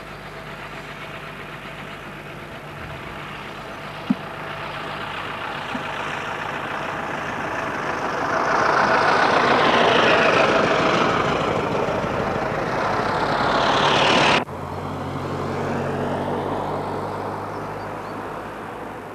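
Ford Model T cars, each with a four-cylinder side-valve engine, driving past on tarmac. Their engine and road noise grows to its loudest as they go by, around halfway through. The sound cuts off suddenly about fourteen seconds in; another approaching car is then heard, rising and then fading.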